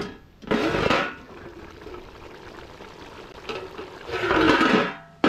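Water poured into a cooking pot in two rushes, each about a second long, with a quieter hiss between them.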